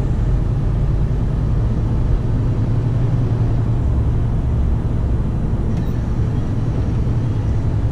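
Scania P280 truck's diesel engine running steadily at cruising speed, with tyre and road noise, heard inside the cab as a constant low hum.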